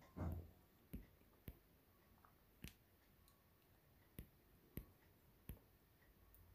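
Near silence broken by faint, scattered clicks, about six of them spread over several seconds, with one short, soft, low sound just after the start.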